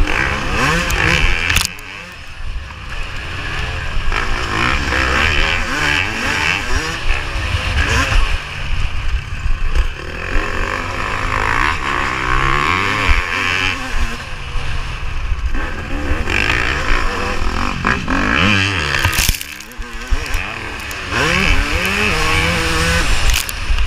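Yamaha YZ250 two-stroke motocross engine at race pace, its pitch rising and falling again and again as the throttle is opened and shut and gears are changed, with wind rushing over the helmet camera. The engine drops off briefly about two seconds in and again near twenty seconds.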